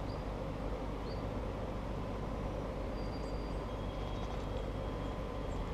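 Steady low rushing outdoor noise, with a few faint short high chirps over it.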